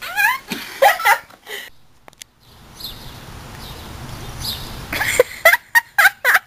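Laughing voices in the first second and a half, then a steady rushing noise, then a girl laughing in quick short bursts near the end.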